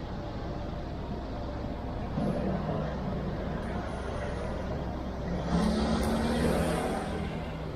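Street traffic: motor vehicles running, with one passing close and at its loudest a little past halfway.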